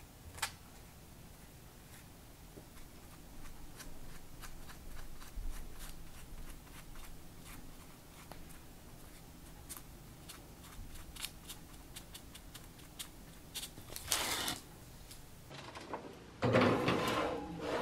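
Light ticks and soft dabbing of a silicone pastry brush working egg wash over shaped dough on a parchment-lined baking sheet. Near the end a louder, noisy scrape as the metal baking sheet slides onto a wire oven rack.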